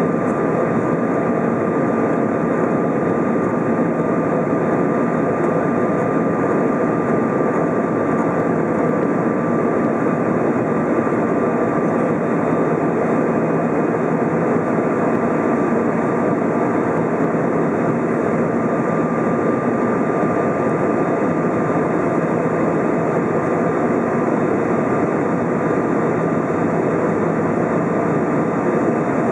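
Steady cabin noise inside an Airbus A320 climbing out after departure: the roar of the jet engines and the rush of air heard through the fuselage, with a thin steady whine over it.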